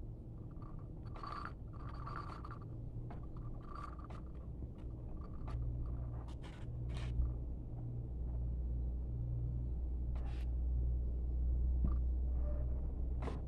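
Clothes iron sliding and scraping over cloth on an ironing board, with fabric rustling as the garment is moved and smoothed, in short irregular strokes. A low steady rumble runs underneath and grows louder about halfway through.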